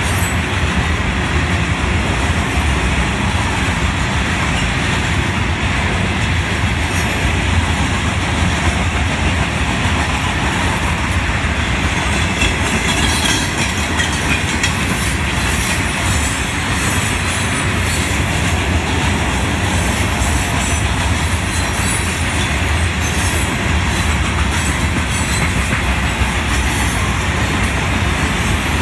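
Loaded Florida East Coast Railway rock hopper cars rolling past, a steady, loud rumble of steel wheels on rail.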